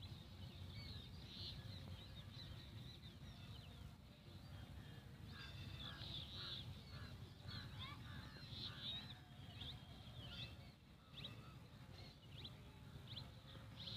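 Faint room tone with a low hum and scattered faint bird chirps in the background.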